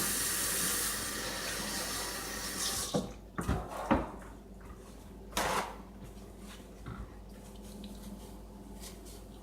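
Water running from a tap into a sink, shut off about three seconds in, followed by a few sharp knocks.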